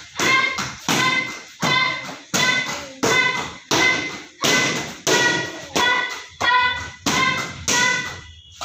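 Taekwondo kicks slapping leather paddle targets in a fast, even rhythm, about two strikes a second, each with a short ringing tail; the strikes stop shortly before the end.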